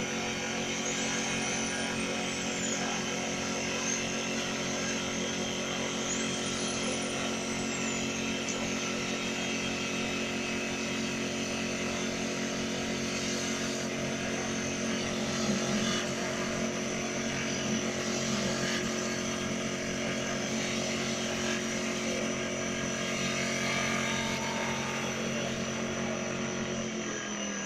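CNC wood lathe running a turning job, with a steady motor whine and the noise of the tool cutting the spinning wood. Right at the end the whine starts to drop as the machine begins to wind down.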